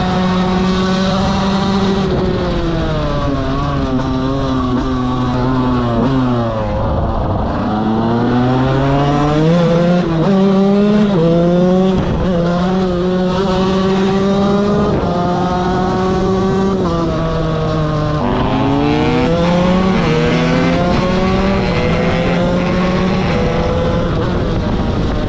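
KTM 125 motorcycle engine ridden at full throttle: the pitch falls as it slows, then climbs hard and drops back at each gear change, slows again about three quarters of the way through and climbs once more.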